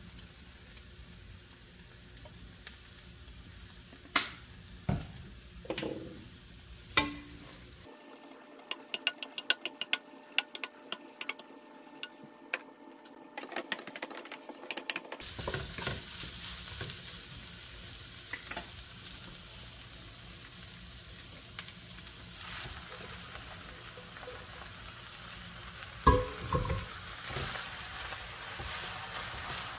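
Food frying in a frying pan while a wooden spatula stirs it and taps against the pan: at first scattered knocks, then a spell of rapid clicking taps, then a steady sizzle as glass noodles are stirred through the onion, carrot and meat. A cluster of louder knocks comes near the end.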